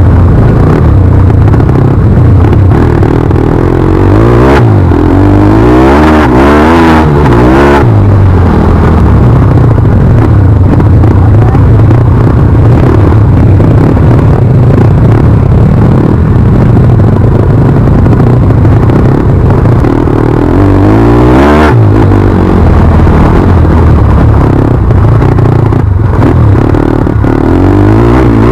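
Loud single-cylinder engine of a 160 cc pit bike under way, its note rising and falling as it revs and shifts, with the biggest swings about four to eight seconds in and again around twenty-one seconds.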